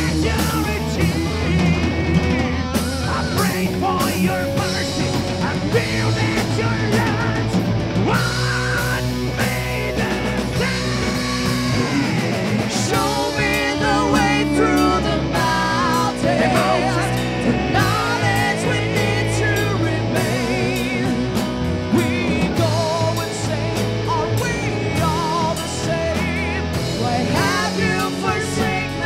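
Metal band playing live: drums, electric guitar and keyboards, with vocalists singing over them.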